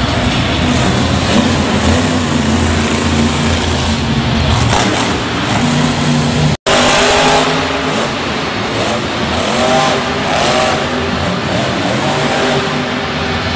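Monster trucks' supercharged V8 engines running and revving hard. The sound drops out for an instant about halfway through, then the engine noise carries on.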